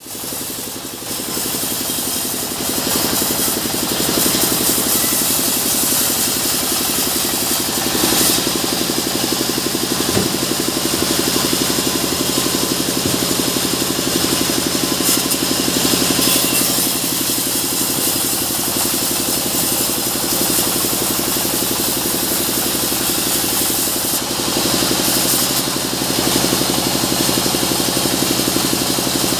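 Band saw sawmill running steadily: a constant machine hum with a strong hiss, building up over the first few seconds and then holding level.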